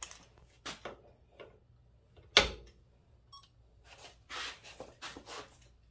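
Sharp metal clicks and knocks from handling a half-inch torque wrench on a digital torque adapter clamped in a bench vise, with one loud click about two and a half seconds in. Soft scuffing follows a couple of seconds later.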